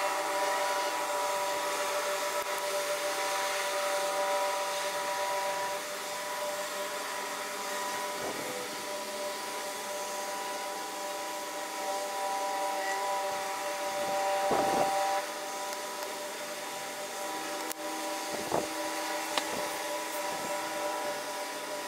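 Harbour sound played back at eight times speed: a steady, high whirring hum made of several held tones over a hiss. Brief swooping sounds come about a third of the way in, just past the middle and at about three quarters.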